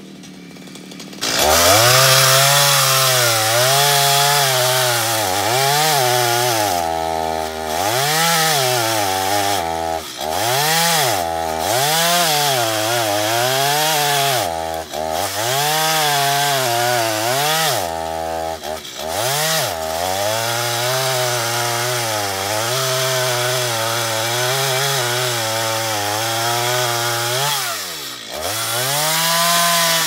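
Petrol chainsaw cutting through a felled log, throttled up about a second in. The engine's pitch sags under load and climbs back again and again as the chain bites, then falls away near the end as the throttle is released.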